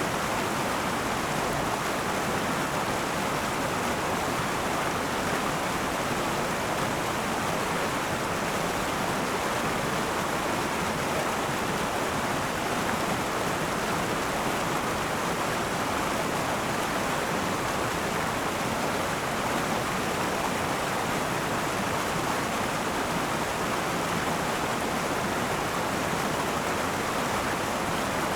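River water rushing and burbling over rocks in a steady, unbroken flow.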